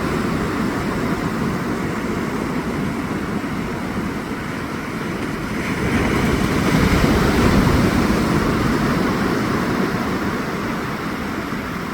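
Ocean surf rushing onto the shore, with wind on the microphone; a wave builds about six seconds in and then eases off.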